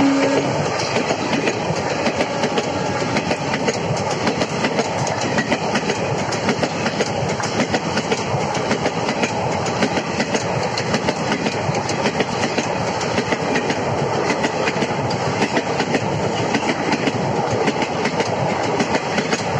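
Blue ICF passenger coaches of an Indian Railways express rushing past close by: a steady loud rush with rapid clatter of the wheels over the rail joints. The hauling electric locomotive's horn trails off in the first half second.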